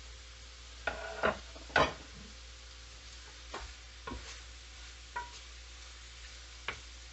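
Beef, onion and bell peppers sizzling in a cast-iron skillet, with a wooden spatula knocking and scraping against the pan several times as the vegetables are stirred in. The knocks are loudest in the first two seconds.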